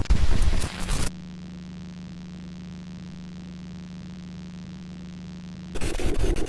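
Analog video static used as a glitch effect: a loud burst of hissing static, then a steady low electrical hum for about five seconds, then another burst of static near the end.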